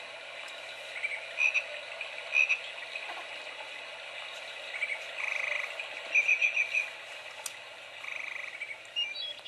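Electronic sound unit of a Baby Einstein play gym playing recorded nature sounds: frogs croaking in short, rapidly pulsing trills, with higher chirps between them.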